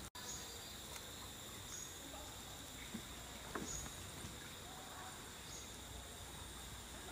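Insects in tropical forest, trilling steadily at a high pitch, with a short higher chirp that recurs about every two seconds.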